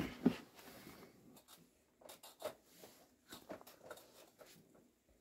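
Faint handling noises as a man drinks from a shot glass: rustling of clothing and a few light, uneven clicks and taps, with a short knock at the start.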